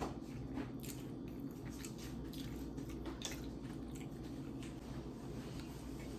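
Close-miked eating: wet chewing with scattered short mouth clicks and squishes, over a low steady hum.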